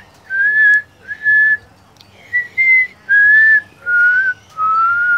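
A person whistling a string of about seven short, level notes, each roughly half a second long, to call a cat. The notes sink a little lower in pitch toward the end.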